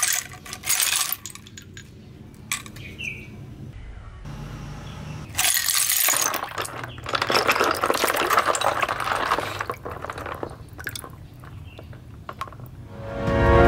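Hard seashells clinking and rattling against each other in a run of sharp clicks, thickest in the middle stretch.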